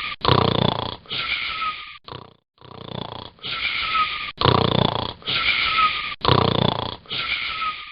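Snoring in a steady rhythm, about one breath every two seconds. Each breath has a rough snore followed by a whistling wheeze. There is a short break about two seconds in.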